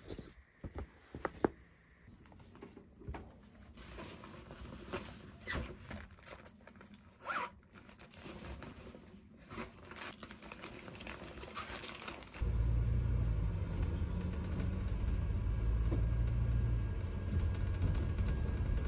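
Rustling, scraping and clicking as a tablet case and a backpack are handled and packed, with a zip. About two-thirds of the way through it cuts abruptly to the steady low rumble of a bus engine heard from inside the moving bus.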